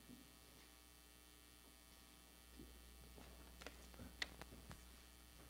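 Near silence: a steady low electrical mains hum, with a few faint clicks about halfway through.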